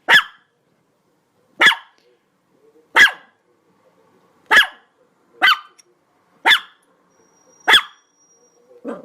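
A dog barking: seven short, sharp single barks, about one every one to one and a half seconds.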